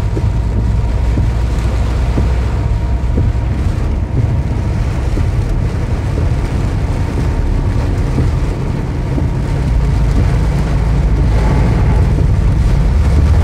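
Steady low rumble inside a car driving through a rainstorm, with the hiss of tyres on a wet road and rain on the windscreen; it grows a little louder near the end.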